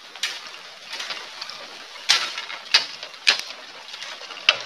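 Bolo blade chopping bamboo: about five sharp cracking strikes, irregularly spaced, with a longer pause after the first.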